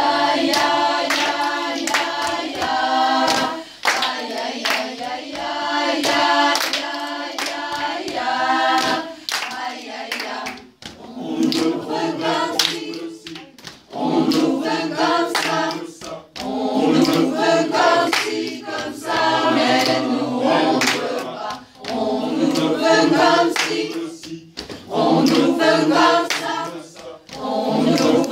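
Mixed choir of men and women singing a cappella in phrases with short breaks between them, with sharp hand claps keeping time.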